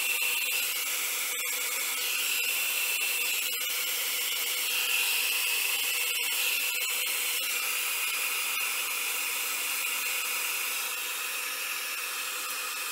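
Hand-held blow dryer running steadily on wet alcohol ink, a continuous whir with a high whine that shifts slightly in pitch a couple of times.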